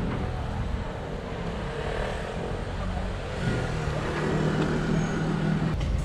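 A motor vehicle running on a street, its engine note growing louder about halfway through as it comes closer, over steady traffic rumble.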